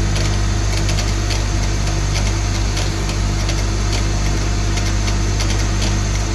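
CNC lathe turning a 30-spline automotive part: a steady, loud motor hum with irregular sharp ticks a few times a second.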